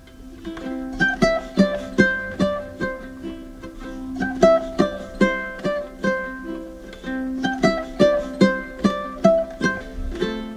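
Background music: a plucked string instrument playing a light melody, each note struck sharply and fading quickly, about two to three notes a second.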